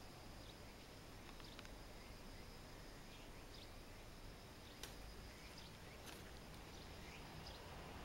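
Near silence: faint garden ambience with a steady faint high hum, a few faint high chirps, and two small clicks about five and six seconds in.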